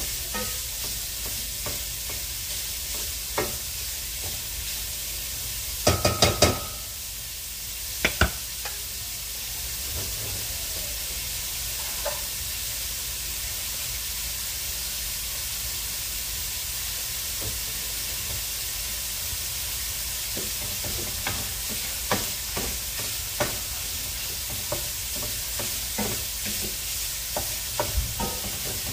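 Ground sausage sizzling steadily in a stainless steel skillet as it browns, with a plastic meat chopper scraping and knocking against the pan as it breaks up the meat. A quick run of sharp knocks comes about six seconds in, the pan sizzles on alone through the middle, and the scraping and clicking pick up again over the last several seconds.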